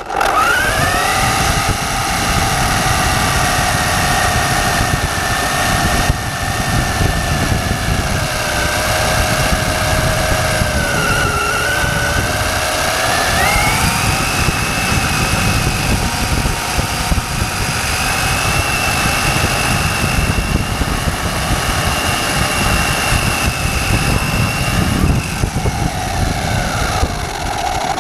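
Hobao Hyper ST radio-controlled truck running, its drivetrain giving a steady whine that sags slowly, jumps up in pitch about halfway through and drops near the end, over a rough rumble of the truck moving over the ground.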